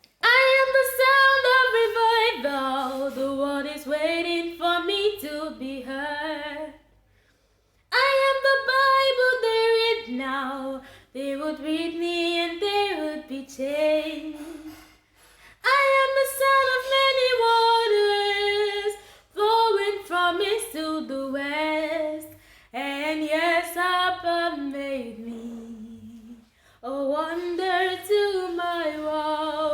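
Unaccompanied female singing of a revival worship song, with no instruments. It comes in long sung phrases separated by short breaths and pauses.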